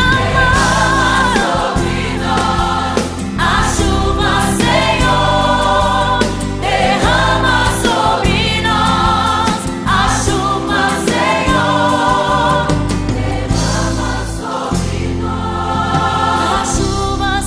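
Gospel song with a choir singing wordless or untranscribed vocal lines over a full band with bass and drums.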